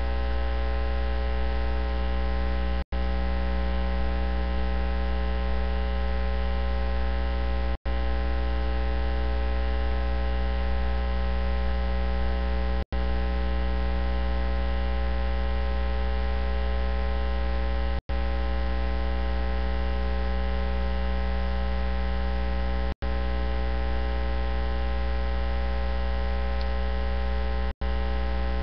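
Steady electrical mains hum with many overtones and no voice audible through it, cut by brief dropouts about every five seconds. It is a recording-chain fault that has swamped the sermon audio.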